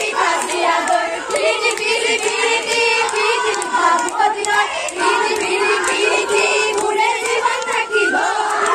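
A group of young women's voices singing together loudly, with sharp hand claps among the singing.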